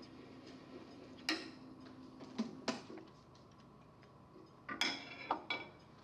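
A faint steady hum that stops about two seconds in, then a few sharp clinks and knocks in two clusters as metal turning tools and wooden pieces are handled and set down at a wood lathe.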